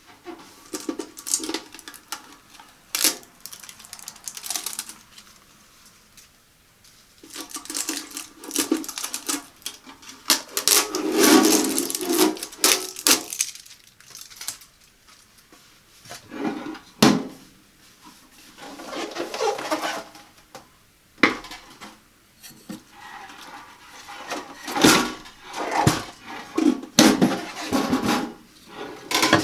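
Irregular metal clinks, knocks and clatter from handling a countertop toaster oven and its metal parts, mixed with stretches of packaging rustle. A few sharp, louder knocks stand out.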